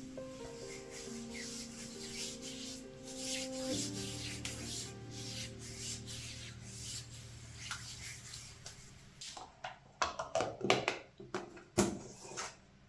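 Soft background music of held notes, under repeated rubbing or brushing strokes. Near the end come several light clicks and knocks.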